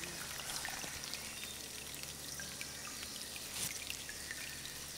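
Steady rushing of water, with a few faint ticks scattered through it.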